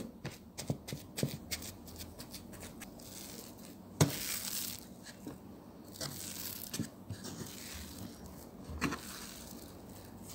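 Hands punching down and pulling at risen yeast dough: soft sticky tearing and squishing as the dough deflates and is folded, with a few light clicks early on and longer rustling tears about four and six seconds in.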